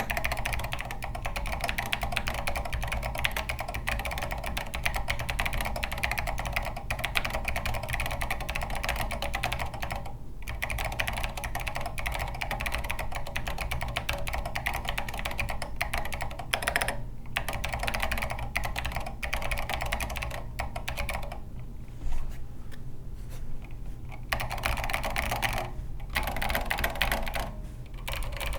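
Continuous fast typing on a Hyper 7 R4 mechanical keyboard with Zeal Clickies clicky switches and SA keycaps, in a case built without foam that the builder finds pingy. A few brief pauses, and a sparser, quieter stretch about three-quarters through.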